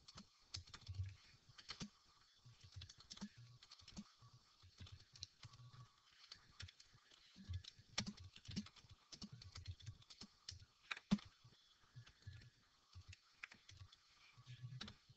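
Faint typing on a computer keyboard: irregular key clicks with short pauses between bursts of keystrokes.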